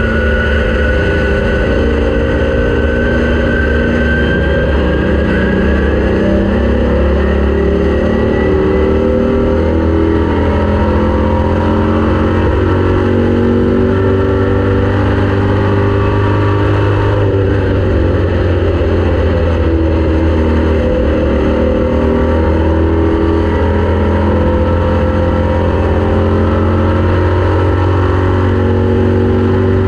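Race car engine running at speed. It is loud and continuous, its pitch drifting gently up and down.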